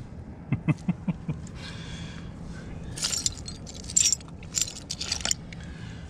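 A handful of small metal finds (old coins, lead seals and a washer) jingling and clinking together as they are handled: a few light clicks in the first second or so, then several bursts of metallic jangling about three to five seconds in.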